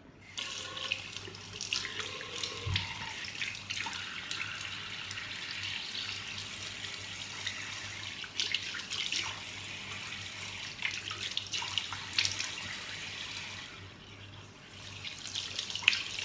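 Tap water running into a sink with irregular splashing as a face pack is rinsed off the face. The water eases off for a moment near the end, then splashes again.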